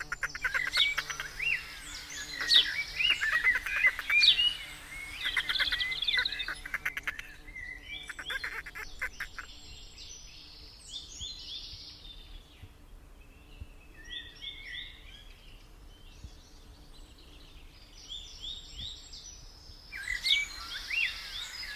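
Birds chirping and calling, many short calls busiest in the first half and again near the end, with rapid rattling trills among them.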